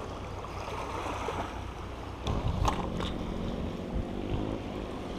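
Steady outdoor noise of wind on the microphone and water along a rocky shore, with a few faint knocks about halfway through.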